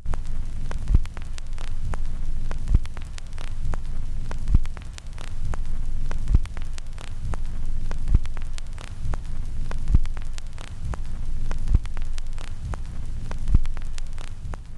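A low, throbbing hum with a heavy thud about every second and three quarters, over scattered crackling clicks.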